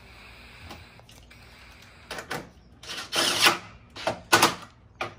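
A cordless drill/driver running bolts into a car's front-end brackets: three short bursts about two, three and four seconds in.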